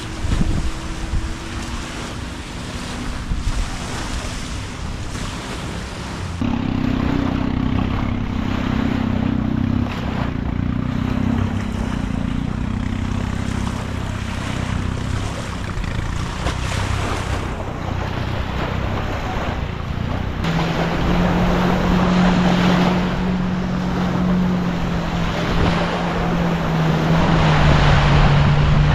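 Motorboat engine running under way, with wind on the microphone and water rushing past. The engine's hum shifts pitch a few times and grows a little louder towards the end.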